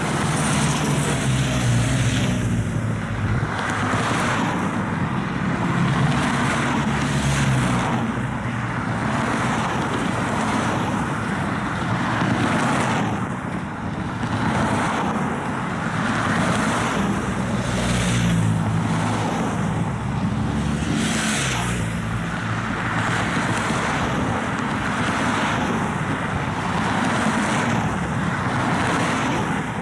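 Race convoy cars and motorcycles passing one after another, each engine and tyre noise swelling and fading, several passes a few seconds apart.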